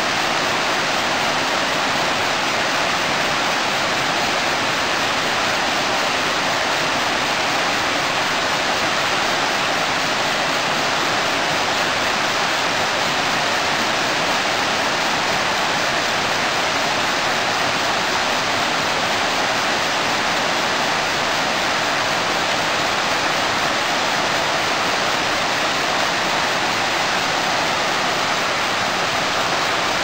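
Steady rush of flowing river water, an even hiss with no breaks or changes.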